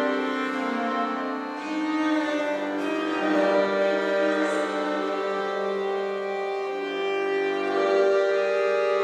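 Instrumental music with long held notes over a steady low drone.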